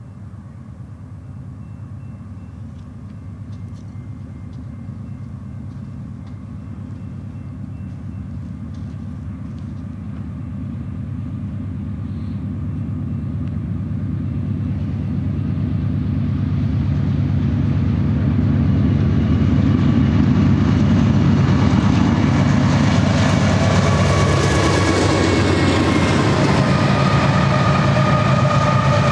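Diesel locomotives of a BNSF double-stack freight train, eleven units led by a GE C44-9W, approaching and passing while pulling the train. A deep engine drone grows steadily louder for about twenty seconds and then holds, with high steady tones joining in over the last few seconds.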